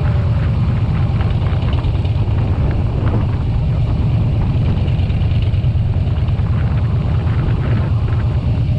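Motorcycle running steadily on the road, a continuous low engine rumble with road and wind noise.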